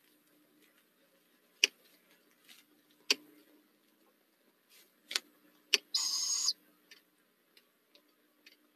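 A barred owlet gives one short, raspy, hissing call about six seconds in. Before it come a few sharp clicks.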